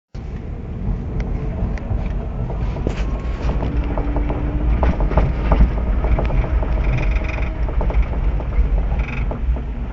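Renault Logan being driven: a steady low road rumble with irregular sharp knocks from the area of the right rear wheel arch.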